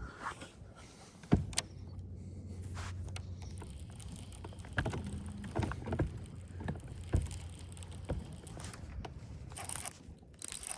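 A steady low motor hum on a fishing boat, with scattered short knocks and clicks of gear being handled.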